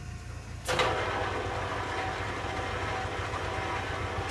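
Carroll-Jamieson 16-inch by 60-inch engine lathe starting up and running: the spindle and headstock gearing come in suddenly about a second in and run at a steady speed with a gear noise of several steady tones.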